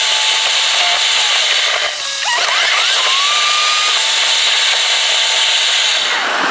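Background music: a bright, buzzing sustained sound with little bass, a few sliding notes and long held tones.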